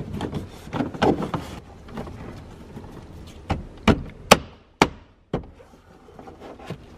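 Plastic interior trim panel of a BMW E46 Touring being fitted back in. It rubs and scrapes against the rubber weather strip, then about five sharp clicks and knocks come halfway through as it is pressed and knocked into place.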